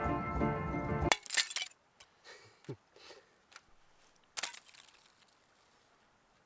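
Background music ends about a second in, then a hand breaks thin ice at the edge of a shallow mountain tarn: sharp cracks and glassy clinks of the ice plates, loudest just after the music stops and again past four seconds, with smaller clicks between.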